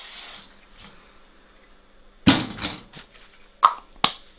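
An aerosol can of K&N air-filter oil hisses as it sprays and cuts off about half a second in. After a pause come about four sharp knocks and clicks from handling the can and its plastic cap; the first, a little after two seconds, is the loudest.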